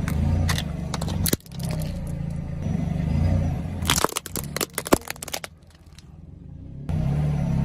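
Brittle objects cracking and crunching as they are crushed: one sharp crack about a second in, then a rapid cluster of cracks around four to five seconds. Under it runs a steady low engine drone, which drops out briefly near the end.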